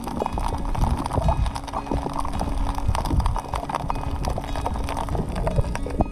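Underwater sound picked up by an action camera in its housing: dense, irregular clicking and crackling over a low rumble.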